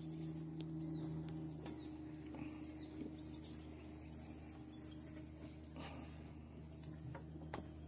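Insects chirping in high-pitched pulses, about three every two seconds, over a steady high whine. Faint knocks of footsteps on wooden footbridge planks come through now and then.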